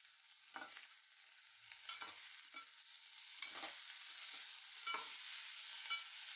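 Metal spoon stirring sliced vegetables frying in oil in an aluminium pot, knocking and scraping against the pot about seven times at irregular intervals, over a faint steady sizzle.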